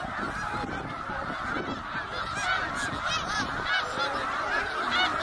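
A large flock of snow geese calling all at once: a dense, unbroken chorus of overlapping honks that swells a little louder about halfway through.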